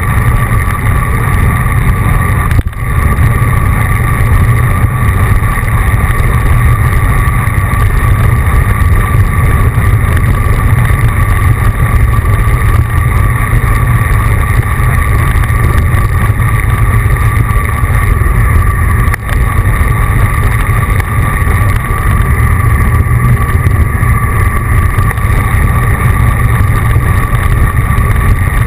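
Steady wind rumble on the microphone of a camera on a moving road bicycle, with a faint steady hum above it.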